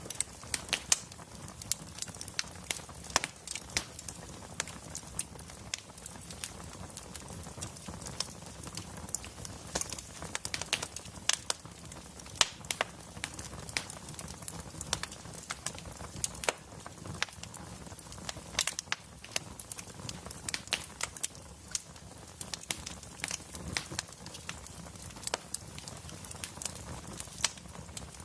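Wood fire crackling in a fireplace: irregular sharp pops and snaps, several a second, over a low steady background.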